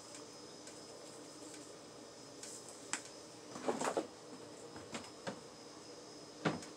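Light clicks and knocks of kitchen items being handled while seasoning a pot of mashed potatoes, a few scattered through the second half, with a short squeaky pitched sound among them about four seconds in, over a faint steady hum.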